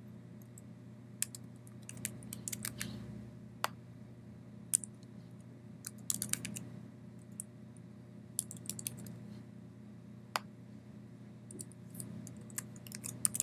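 Computer keyboard typing in short bursts of keystrokes, with a few single clicks between them, over a low steady hum.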